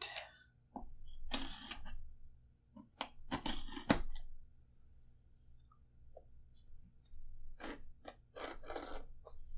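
Packing tape being peeled and cut from a package by hand: two longer rasping pulls in the first few seconds, then a quick run of shorter scratchy rasps near the end.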